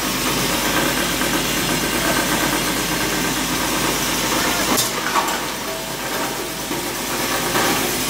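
Copper wire granulator running with a steady, loud mechanical noise as scrap copper wire is fed into its hopper and chopped, with a sharp clack a little under five seconds in.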